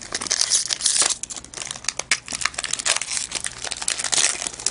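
Hockey trading card pack wrapper being torn open and crinkled by hand, with a steady run of dense, irregular crackles.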